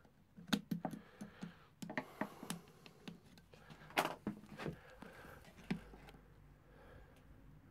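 Pliers and hands clicking and knocking against metal parts of a motorcycle's frame while working at the hose clips on the fuel pipe, irregular light clicks with the loudest knock about four seconds in; quieter from about six seconds on.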